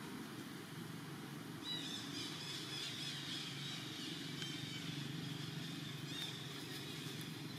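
Long-tailed macaque screaming: a high-pitched, wavering scream that starts about two seconds in and lasts about three seconds, then a shorter one near the end. It is the distress scream of a monkey being pinned and roughed up by another.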